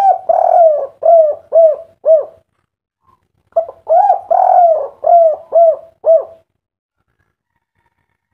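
Spotted dove (derkuku) cooing in two phrases, each a long drawn coo followed by three short 'kuk' notes: the kuk-3 song type. The second phrase begins a little over a second after the first ends.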